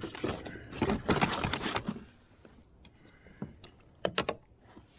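Handling noise on a plastic kayak: a second or two of clattering knocks and scraping as the bowfishing arrow and its line are pulled in and set down on the hull, then a few sharp clicks near the end.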